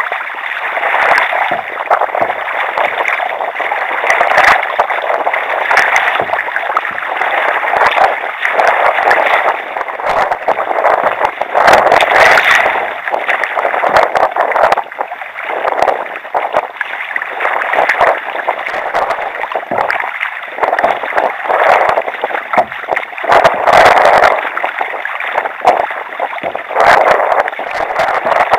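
Choppy water splashing and slapping against a sea kayak's hull as it is paddled: a continuous, uneven wash of water with frequent louder splashes.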